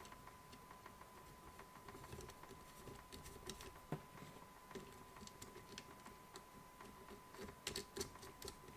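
Faint, scattered small clicks and taps of fingers fitting small metal nuts onto screws on a 3D-printed plastic part, with a quick run of clicks near the end.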